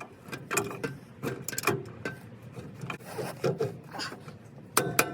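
Irregular metal clicks and short scrapes of hand tools and bolts being worked while fitting a driveshaft's bolts, with a louder cluster of clicks near the end.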